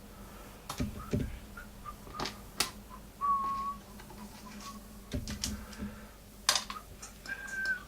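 Small metal tools and watch parts clicking and tapping on a workbench and in a parts tray, scattered irregularly. A couple of short, high, steady tones come in about three seconds in and near the end.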